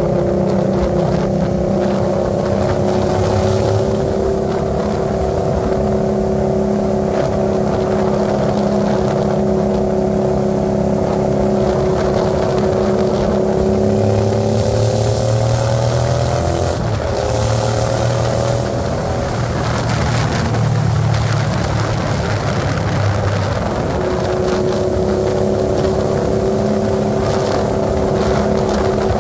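Hyosung GV650's V-twin engine running steadily under way through its new exhaust. The note climbs about halfway through, drops suddenly, and later returns to its earlier steady pitch.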